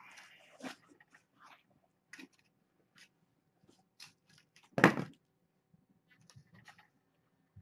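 Kittens crunching dry kitten food, heard as scattered small clicks and crunches, with one loud thump a little under five seconds in.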